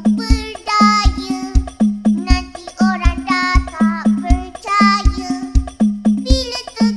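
Hadroh-style DJ remix music: deep booming bass thumps about twice a second under a pitched melody line.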